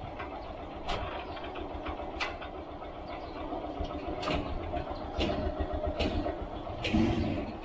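Motorcycle tricycle engine running, with sharp rattles of the body and sidecar about once a second.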